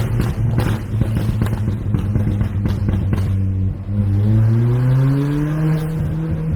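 Volkswagen Polo GT with a custom exhaust: the engine holds a steady note with rapid crackling pops, then about three and a half seconds in the note dips and rises steadily as the car accelerates.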